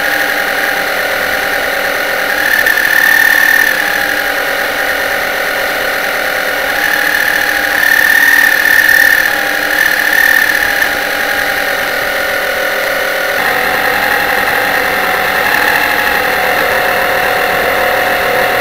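Motor of an RC model pilot boat running steadily, picked up by a camera mounted on the model's deck. It is a high, steady whine with several tones, swelling louder a few times, about 3 s in and around 8 to 10 s in.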